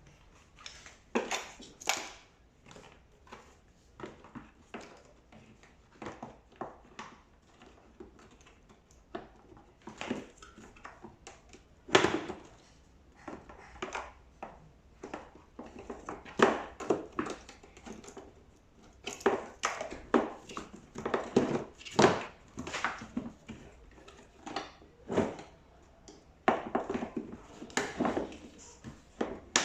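Irregular knocks, clunks and rattles of LG tumble dryer panels and parts being handled and fitted together during assembly.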